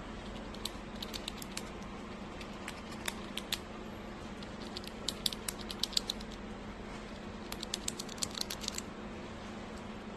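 Gray squirrel gnawing on a nut held in its paws: several bursts of quick, crisp crunching clicks.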